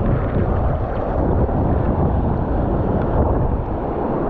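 Steady rumble of wind buffeting the microphone, mixed with ocean surf washing on the shore.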